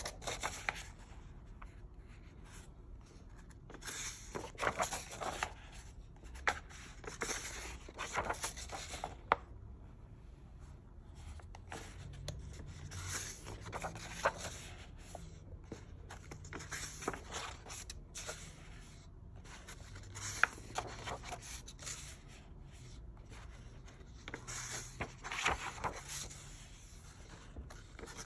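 Paper rustling and sliding as the large pages of a coloring book are turned one after another, a swish every few seconds.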